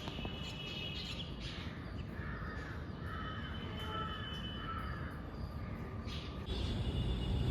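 Crows cawing, several harsh calls in the middle, with fainter chirps of other birds over a steady low background rumble that gets louder near the end.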